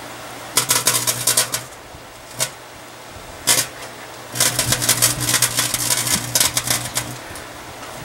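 A metallic-printed paper napkin arcing and burning inside a running microwave oven: bursts of rapid crackling and snapping sparks, one about half a second in, two short snaps, then a longer run of crackling from the middle until near the end, over the oven's steady hum.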